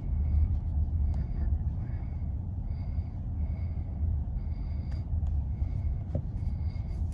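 Steady low rumble, with a faint high beep that repeats about every three quarters of a second.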